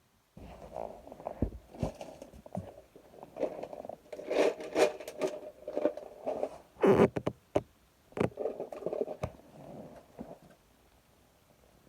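Hands and tools working on furnace parts: irregular scraping and rubbing with scattered sharp knocks and clicks, the loudest cluster of knocks about seven seconds in, stopping about a second before the end.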